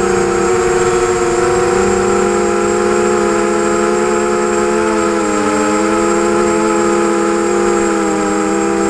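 ZMR250 quadcopter's four brushless motors and propellers whining steadily in flight, several tones drifting slightly in pitch with throttle, one dipping briefly about halfway through.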